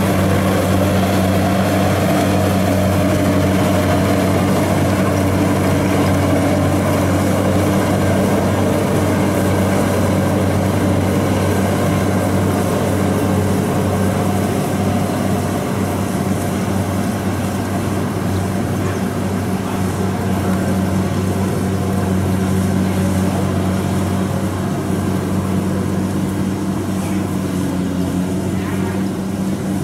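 A rice combine harvester's engine runs steadily with a constant low hum, easing off slightly in the second half.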